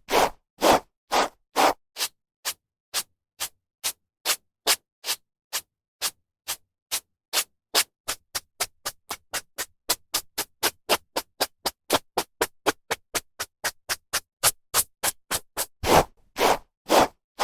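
Hairbrush strokes through hair: short swishing brush sounds repeating about two to three times a second with brief silences between. A few longer, louder strokes come near the start and again near the end.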